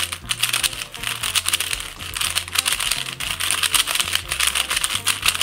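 Budget magnetic 3x3 speed cube being turned rapidly by hand in a scramble: a dense, fast run of plastic clicks and clacks, the cube loud as it turns. Background music with steady low notes plays underneath.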